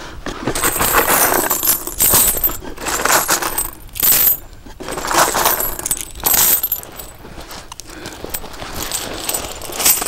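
Handfuls of metal coins clinking and jingling as they are dropped into a cloth backpack, in several short bursts.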